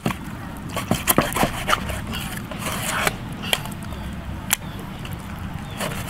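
Meat cleaver chopping through a raw rack of ribs onto a wooden chopping block: sharp, irregular chops, a quick cluster about a second in, then more spaced out.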